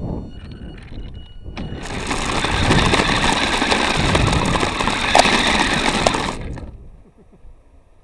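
Revell Lion 4x4 RC car's electric motor and drivetrain running, picked up onboard: a loud rattling drive noise with a steady whine underneath. It starts about two seconds in, runs for about four and a half seconds, then stops abruptly.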